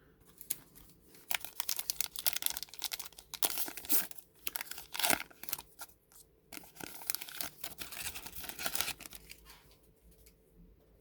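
Plastic wrapper of a baseball trading card pack being torn open and crinkled, in a run of crackling that pauses briefly about six seconds in.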